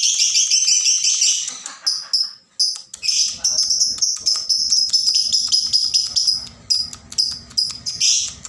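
Excited lovebird singing a long, rapid, shrill chatter, its 'ngekek' song, broken by a brief pause about two and a half seconds in.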